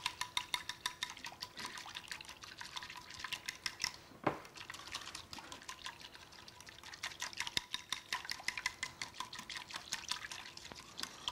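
Wire whisk beating hot lemon gelatin in a glass bowl to dissolve it: the wires click quickly against the glass, about five strokes a second, with the liquid swishing. One louder knock comes about four seconds in.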